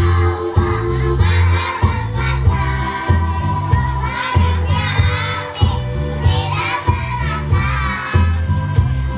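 Kindergarten children's choir singing together over a backing track with a steady, repeating bass beat.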